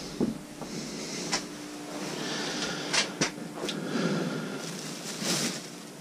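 Handling noise: a scatter of light knocks and clicks with rustling as things are picked up and moved around, the sharpest knocks about halfway through and near the end.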